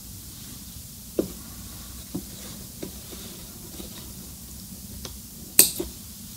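A few short light clicks and knocks from handling the jeans at the sewing machine, the loudest about five and a half seconds in, over a low steady hum. The machine is not stitching.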